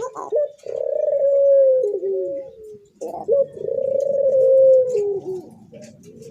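Puter (Barbary dove) cooing: two long, drawn-out coos of about two seconds each, each opening with a short higher note, and another coo starting near the end.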